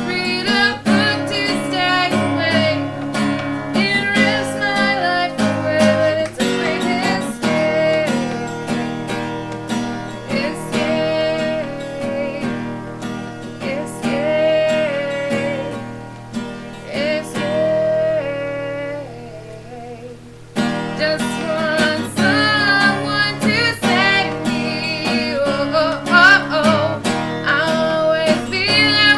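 Acoustic guitar strumming with a sung melody over it. About two-thirds of the way through the music thins out and quietens, then comes back in full.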